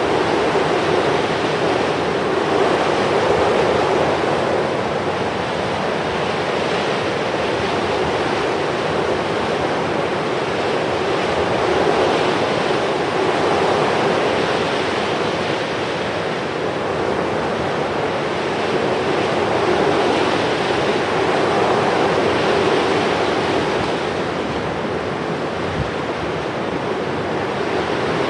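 Steady rushing wash of surf, swelling and easing slowly every several seconds.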